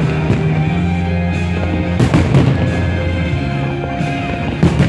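Aerial firework shells bursting in sharp cracks, a cluster about two seconds in and another near the end, over music with held notes and a steady bass line.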